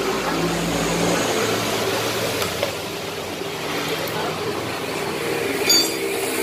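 Steady mechanical hum and workshop background noise, with a short ringing clink of a hand tool on metal about six seconds in.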